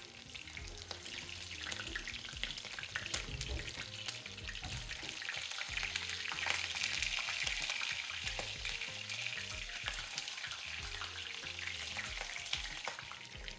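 Chicken pieces deep-frying in hot oil: a steady crackling sizzle with many small pops, swelling louder midway.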